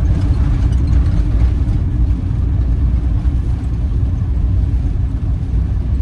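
Campervan driving along the road: a steady low rumble of engine and road noise.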